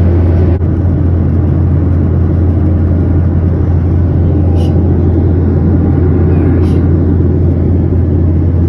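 Steady in-flight cabin noise of a Boeing 737-800 in cruise: a loud, even drone of the engines and airflow with a strong low hum.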